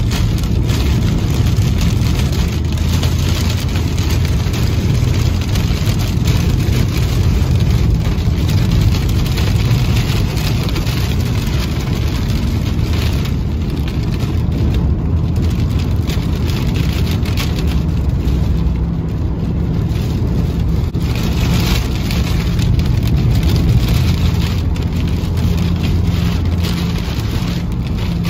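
Rain pelting a car driving through a thunderstorm, heard from inside the cabin over a steady low rumble of road noise.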